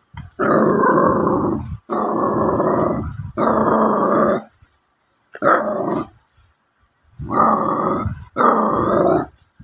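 Jack Russell terrier puppy growling in six drawn-out bursts, each about a second long, with short pauses between them.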